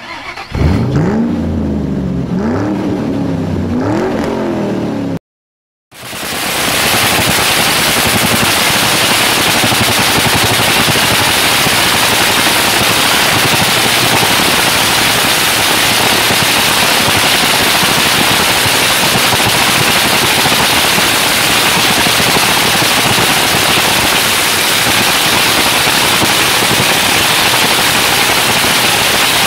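Supercharged V8 of the 'Havoc' drag car running at warm-up: a loud, steady, dense crackling rattle that starts about six seconds in and holds. Before it, a short intro jingle of repeated sweeping tones, then a moment of silence.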